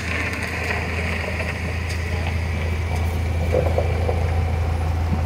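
Pickup truck's engine running close by as the truck pulls up: a steady low hum that slowly grows louder.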